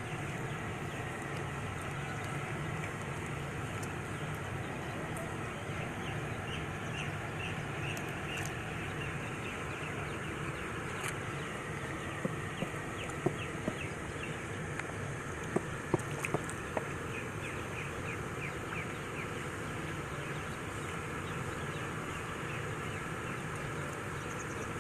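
Steady outdoor background noise with a low hum, with runs of quick bird-like chirps through the middle and a few sharp clicks.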